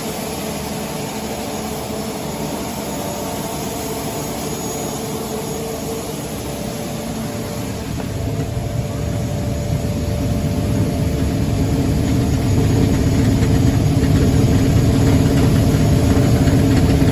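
Maize milling plant machinery running: a steady mechanical hum with a few held tones. About halfway through, a low rumble builds and the sound grows steadily louder.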